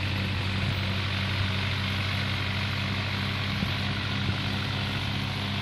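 A vehicle engine running steadily: a low, even drone that holds one pitch throughout.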